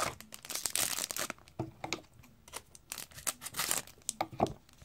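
Wrapper of a hockey trading-card pack crinkling and tearing as it is opened by hand, in two clusters of rustling with light clicks between.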